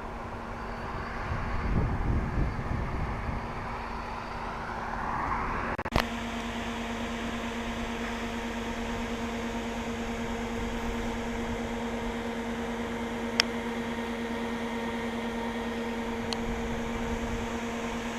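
Steady vehicle noise, as from inside a moving car: a constant hum over a rushing background, with a rising whoosh and a sharp click about six seconds in, after which the hum holds steady.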